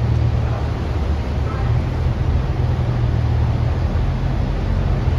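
Inside the cabin of a New Flyer Xcelsior city bus: a steady low rumble from the engine and drivetrain.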